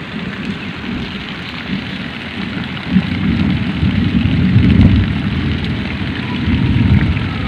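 Heavy rain falling on a flooded mud lane, a steady hiss over a low, uneven rumble that grows louder about three seconds in.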